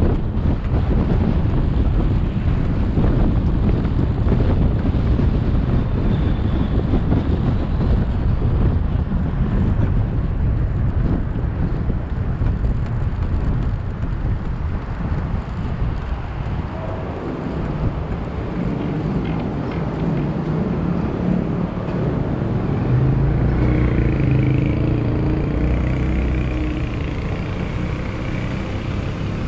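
A vehicle driving through city traffic: steady road noise with wind buffeting the microphone, heaviest in the first half. An engine hum stands out more clearly in the second half.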